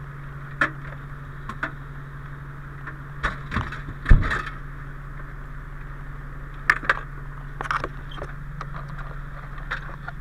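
Fire engine idling as a steady low hum, with scattered knocks and clunks as a firefighter in turnout gear moves against the seat and gear in the crew cab. The loudest thump comes about four seconds in.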